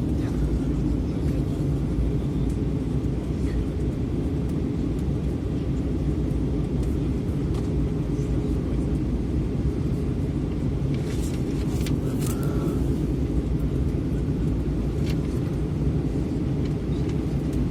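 Steady low rumble of an airliner's engines and airflow heard from inside the passenger cabin, with a few faint clicks about two-thirds of the way through.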